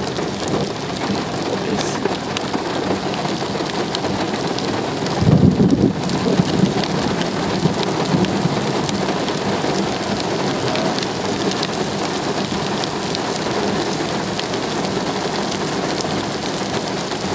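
Steady rain falling on wet pavement, with a short, loud, low rumble of thunder about five seconds in.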